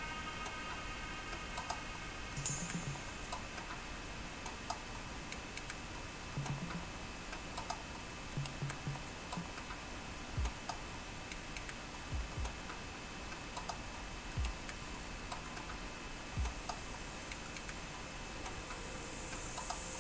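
Faint, scattered small clicks and a few soft low knocks over a steady low room hum.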